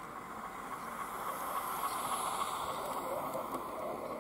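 O gauge model A1x Terrier tank locomotive and coach rolling along the garden railway track: a steady rolling noise of wheels on rails, growing louder to a peak about two seconds in as the train passes, then easing off.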